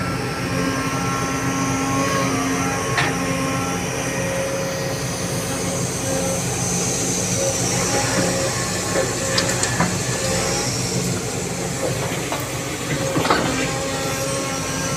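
Diesel engine of a Sumitomo hydraulic excavator running steadily under work, together with a loaded dump truck's diesel, with a few short knocks as the machines move soil.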